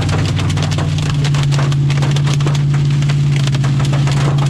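Hailstones hitting the vehicle's roof and body in a dense, irregular patter of sharp clicks and knocks, heard from inside the cab, over the steady drone of the engine, whose pitch steps up about a second in. The hail is pretty big, around quarter size, and sounds a lot worse than it is.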